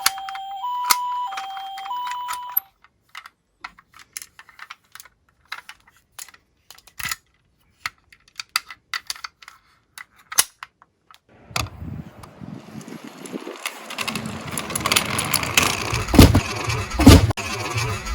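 A toy minicar's electronic two-tone hi-lo siren plays for about two and a half seconds, then scattered light plastic clicks and taps. From about eleven seconds in comes a growing rumble and clatter of toy cars rolling down a slope.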